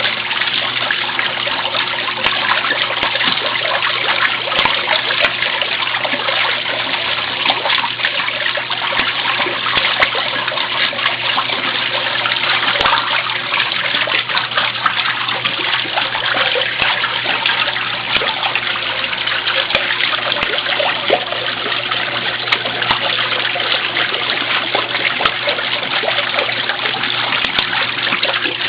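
Mueller 10 kg washing machine mid-cycle: water flowing and splashing inside the tub, with a steady low hum underneath.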